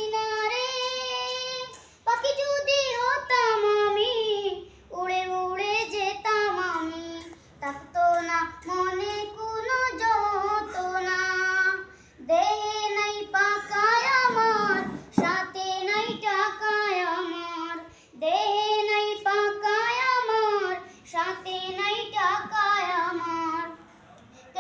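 Boys' voices singing together without instruments, in melodic phrases of a few seconds each with short breaks for breath between them.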